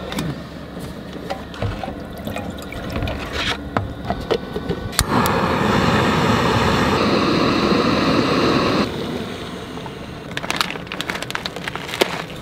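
Jetboil canister stove: several clicks of the piezo igniter, then the gas burner catches about five seconds in and runs with a loud, steady rushing hiss for about four seconds. Near the end, a quick run of crinkles and clicks as a foil meal pouch is handled.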